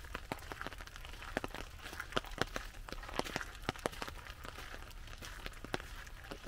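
Raindrops hitting an umbrella overhead, a stream of irregular sharp ticks, with footsteps crunching on a gravel path.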